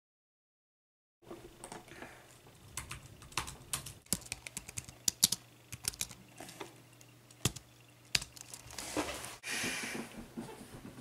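Typing on a computer keyboard: irregular key clicks of varying loudness, after about a second of silence at the start. A soft rushing noise lasts about two seconds near the end.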